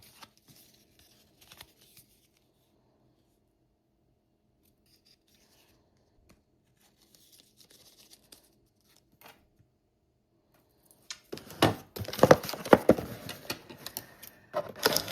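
Knife packaging being handled and then torn open: faint rustles and taps at first, then from about 11 seconds in a loud, dense crackling and tearing of packaging.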